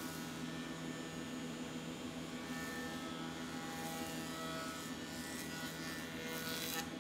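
Surface planer (jointer) running with a steady hum while a hardwood plank is fed over its cutter block, the cut adding a rasping hiss that swells about a third of the way in and stops suddenly just before the end as the plank clears the knives.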